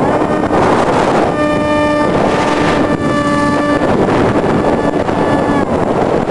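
Wind rushing loudly over the microphone of a camera riding on a Multiplex EasyStar RC plane in flight, with the steady whine of its electric motor and propeller coming in about a second in and dropping away shortly before the end.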